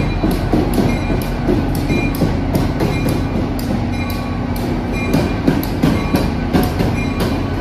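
Shore Line East GP40-3H diesel locomotive rolling past at close range, its engine running with a steady low hum. Its wheels click repeatedly over the rail joints.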